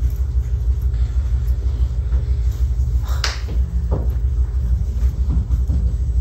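A steady low rumble, with one short sharp noise a little past three seconds in.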